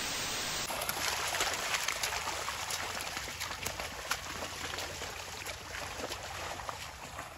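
Steady trickle of running water in a flooded rice paddy, with faint scattered ticks.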